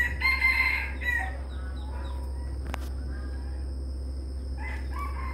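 F3 junglefowl-cross rooster crowing once, a short crow of about a second at the start. A fainter crow begins near the end.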